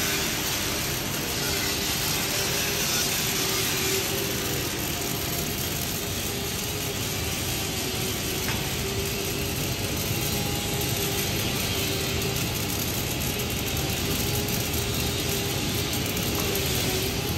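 Dual-torch automatic pulsed gas metal arc welder laying a downhill weld around a steel pipe joint: the arcs give a steady crackling buzz, with a constant hum underneath.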